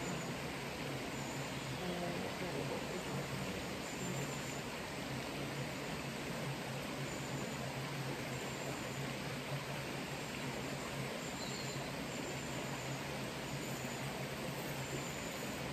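Steady outdoor background noise, an even rushing hiss, with faint short high chirps recurring throughout.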